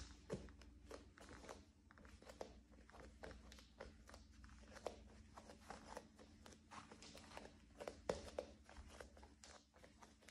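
Faint creaking and clicking of a wooden floor under slow bare-footed steps: an irregular run of short sharp ticks, a few each second, the sharpest about eight seconds in.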